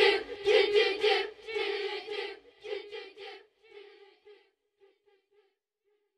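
A group of voices singing the closing notes of a worship song, fading out over about four seconds into silence.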